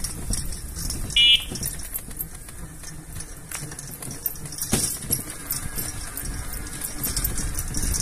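Wind rumbling on the microphone of a camera carried along the road, with handling crackle. A short high-pitched beep sounds about a second in, and a single sharp click comes near the middle.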